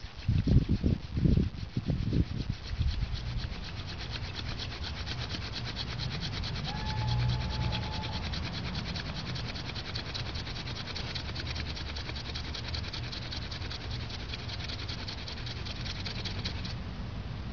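Hand drill friction-fire set: a fire-hardened dog fennel spindle tip grinding back and forth in a notch in a yellow pine fireboard, a fast, steady dry rubbing that stops abruptly near the end. A few heavy low thumps come in the first couple of seconds.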